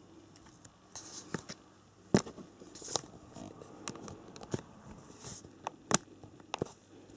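Handling noises: scattered sharp clicks and taps with light rustling between them, the loudest about two seconds in and about six seconds in.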